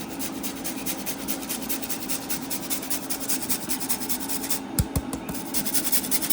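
A frozen ball of limu kohu seaweed being rubbed over a hand grater in quick, even rasping strokes, about five a second. Two dull knocks come about three-quarters of the way through.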